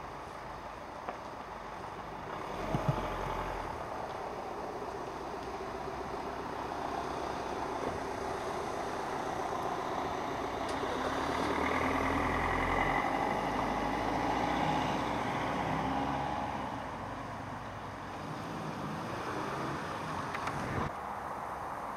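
A motor vehicle passing at a distance: a steady rush with a low rumble that swells over several seconds around the middle and fades again.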